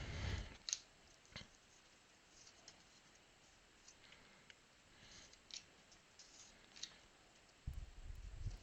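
Faint clicks and soft rustles of trading cards being flipped through by hand, with a low bump near the end.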